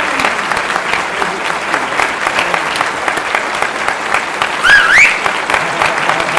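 Concert audience applauding steadily after a piano performance. About three-quarters of the way through, one high, rising whoop or whistle cuts through the clapping.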